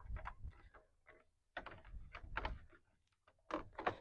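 Faint clicks and rustles of a plastic radiator-support cover being handled and set back into place over a Ford Bronco's grille, in three short spells.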